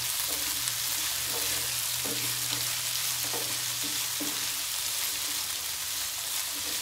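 Chopped mixed vegetables (cauliflower, peas, carrot, potato and capsicum) sizzling in oil in a non-stick kadai, with a steady hiss, while a wooden spatula stirs them with repeated soft scrapes.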